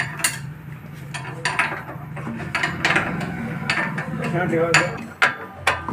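Metal hand tools clinking and knocking against metal in a series of sharp, separate clinks, over a steady low hum.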